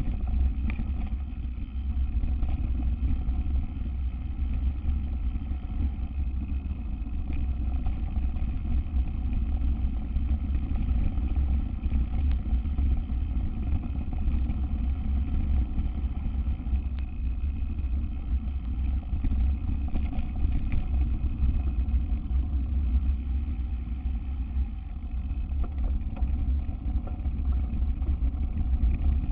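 Mountain bike descending a dirt trail: a steady low rumble of tyres and wind on the ride-mounted microphone, with scattered small clicks and rattles from the bike.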